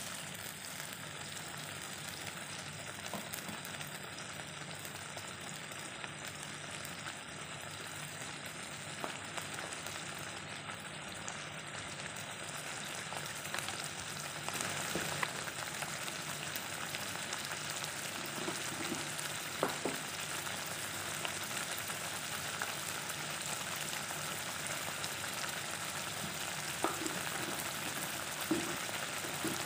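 Sambal sauce bubbling and sizzling in a nonstick wok, stirred with a wooden spatula at first. A few short light clicks come in the second half.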